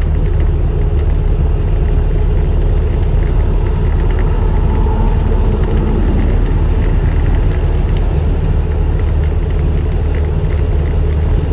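Loud, steady Jeep cabin noise while driving: engine drone and tyre and road rumble, with small rattles.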